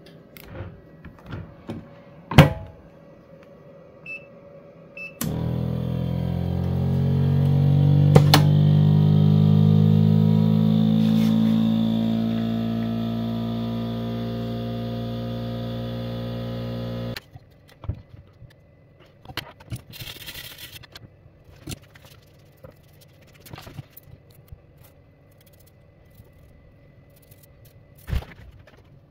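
TBK-808 automatic laminating machine's pump starting abruptly and running for about twelve seconds, its hum rising slightly in pitch before levelling off, then cutting off suddenly. A sharp knock comes about two seconds in, and light clicks and taps follow the pump.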